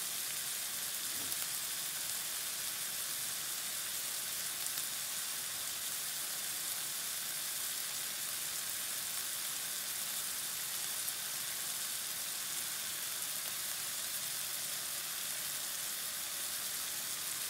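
Bite-sized chicken breast pieces sizzling steadily in vegetable oil in a nonstick frying pan, searing on their first side.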